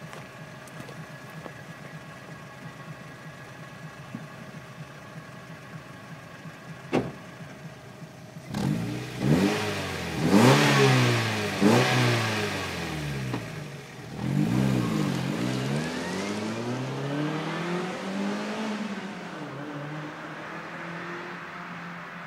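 Stock Mazda MX-5 NB 1.8 inline-four engine idling, with one sharp click about seven seconds in, then revved with several quick throttle blips that rise and drop back, followed by a longer, slower rev that falls back toward idle near the end.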